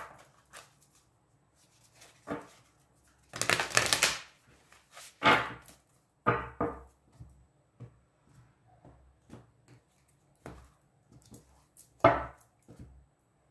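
A tarot deck being shuffled by hand: scattered soft slaps and rustles of the cards, the longest a little under four seconds in.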